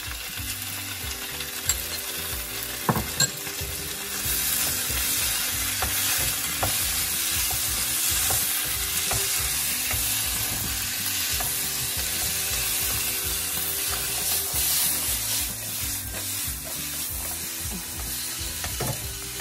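Vegetables and ketchup sizzling in a hot wok while a wooden spatula stirs and scrapes them. There are a few sharp taps of a utensil on the pan about two to three seconds in, and the sizzle grows louder from about four seconds on.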